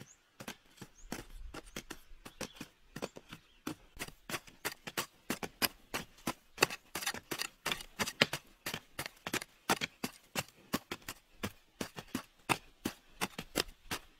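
Metal-bladed hand hoes chopping and scraping into dry, crumbly soil, with two diggers working at once: a quick, irregular run of sharp strikes, several a second.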